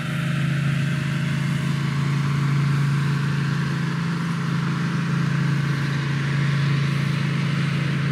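An engine running steadily at one constant pitch, loud and close.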